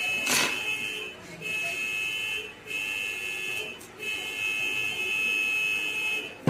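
HP LaserJet M1005 printer running with a high steady whine from its drive mechanism. The whine cuts out briefly a few times, and there is one sharp knock shortly after the start.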